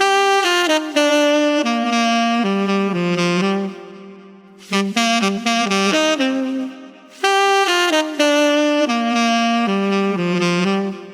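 A solo saxophone playing a melodic line of separate notes in phrases, with short breaks about four and seven seconds in, the last note fading near the end.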